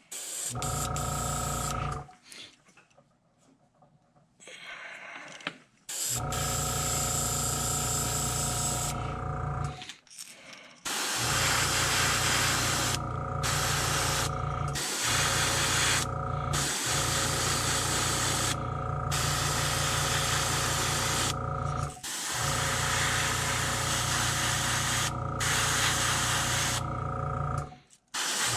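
Airbrush compressor running with a pulsing hum, stopping about 2 s in and starting again a few seconds later, while the airbrush hisses in spurts as its trigger is worked, spraying paint onto a fishing lure.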